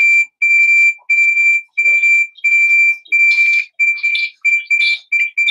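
Electronic alarm beeping loudly at one steady pitch, about three beeps every two seconds, the beeps growing shorter and quicker in the second half.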